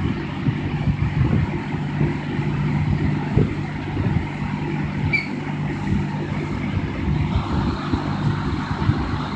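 1960 General Electric W-15 box fan running with its variable speed control turned up to full: a steady motor hum under rushing, buffeting air. The air noise grows a bit stronger about seven seconds in.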